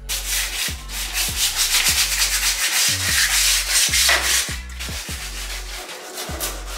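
Hand-sanding the old paint on a pickup truck's bed rail with sandpaper on a block: quick back-and-forth rasping strokes, heavier for the first four seconds and then lighter. Background music with a deep, repeating bass beat runs underneath.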